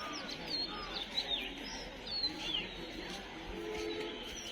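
Small birds chirping repeatedly, short quick sweeping chirps over steady background noise. A brief low tone sounds about three and a half seconds in.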